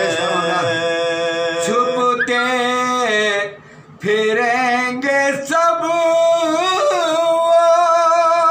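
Soz-khwani: unaccompanied male voices singing a Shia mourning elegy (soz), in long, ornamented held notes, with a short pause about three and a half seconds in.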